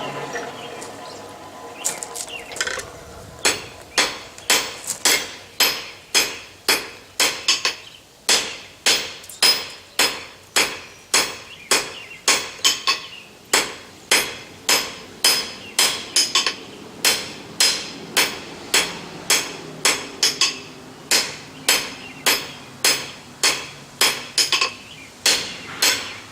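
Blacksmith's hammer striking hot steel bar stock on an anvil, steady blows about two a second, each with a bright metallic ring, drawing out a smooth taper on the end of the bar. A steady rushing noise comes before the hammering starts about two seconds in.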